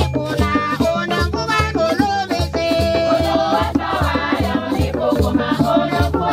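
Choir singing to a steady beat of drums and shaken rattles.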